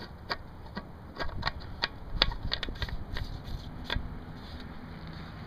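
Irregular clicks and knocks from the chainsaw being handled, its engine not running. The loudest knocks come a little after two seconds and just before four seconds in.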